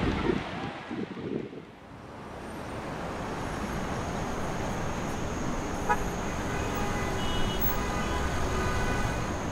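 Street traffic noise swelling in and holding steady, a constant hum of passing vehicles, with a short horn toot about six seconds in.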